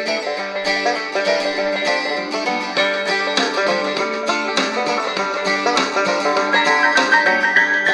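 Plucked-string music received on FM and played through the Eton FR-250 radio's small built-in speaker. It sounds thin, with no deep bass.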